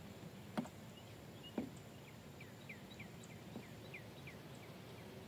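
Quiet creekside ambience with two light knocks about a second apart, followed by a bird calling a quick series of short, falling chirps.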